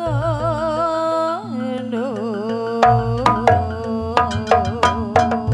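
Jaranan dance accompaniment music. A wavering, held melody line opens over a steady low drone, and from about three seconds in drum strokes and struck, pitched metal percussion notes come in a quick rhythm.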